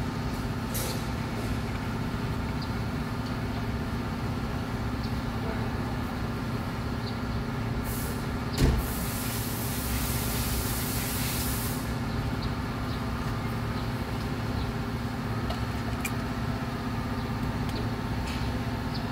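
A car engine idling steadily, here the 1997 Toyota Kijang's 1.8-litre petrol engine. About eight and a half seconds in there is a single thump, followed by roughly three seconds of hiss.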